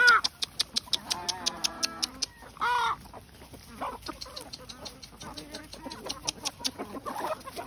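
Flock of chickens feeding on fresh greens: short clucks and calls now and then, the loudest a little under three seconds in, over rapid clicking of beaks pecking at the leaves and ground.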